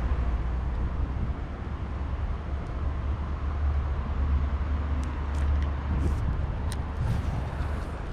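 Steady low outdoor rumble along the river, with a few faint short ticks in the second half.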